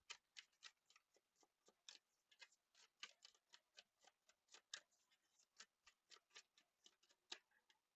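Faint, irregular soft clicks and taps, a few a second: tarot cards being shuffled and handled while the next card is drawn.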